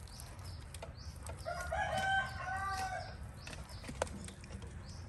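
A rooster crowing once in the background, one drawn-out call starting about one and a half seconds in and lasting about a second and a half, with a few faint clicks from raw chicken pieces being handled.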